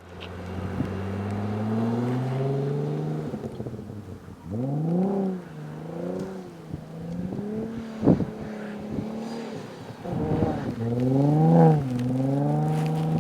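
Audi B5 S4's twin-turbo V6 revving under load as the car drifts on snow. The revs climb steadily at first, then rise and fall sharply several times. A single sharp crack comes about eight seconds in.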